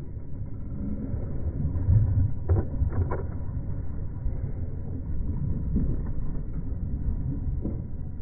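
Muffled low rumble of a small boat at sea, with a few short knocks about two and a half to three seconds in.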